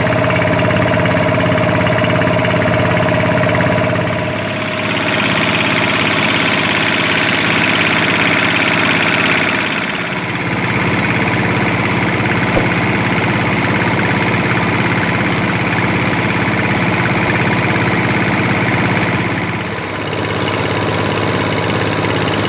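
Wooden fishing boat's engine running steadily under way, with a rushing hiss over it that grows louder for a few seconds about a fifth of the way in.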